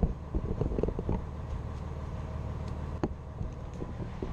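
Steady low mechanical drone from the motorhome's running machinery, with several knocks and bumps from the camera being handled, most in the first second and one sharp knock at about three seconds.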